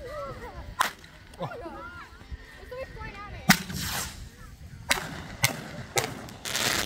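Fireworks going off: a string of sharp bangs, the loudest about three and a half seconds in followed by a short hiss, then three more bangs and a dense crackling rush near the end.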